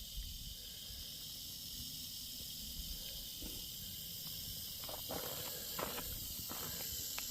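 Rattlesnake rattling: a steady, high buzz, the snake's defensive warning at hikers close by.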